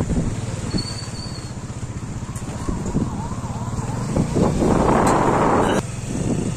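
Street traffic with a motor vehicle engine running steadily. About four and a half seconds in, a loud rush of noise lasts just over a second and cuts off suddenly.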